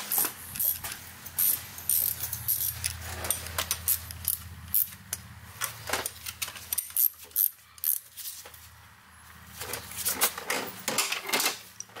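Light metallic clinks and rattles of hand tools and metal parts being handled while a cam locking tool is fitted to the engine's camshafts. A low steady hum sits underneath for about the first half.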